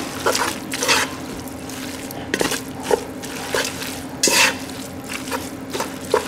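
A utensil stirring and scraping pasta through cream sauce in a pan on the stove, in irregular strokes with a few sharp knocks against the pan.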